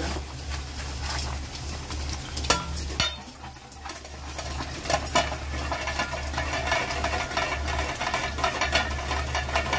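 A spoon stirring thick semolina halwa in a metal kadai, then a steel plate set on as a lid with two sharp metallic clicks about two and a half to three seconds in. After that the halwa bubbles and sizzles steadily in its ghee under the lid.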